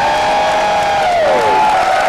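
Audience applauding and whooping, with several long, high 'woo' calls sliding down in pitch about a second and a half in.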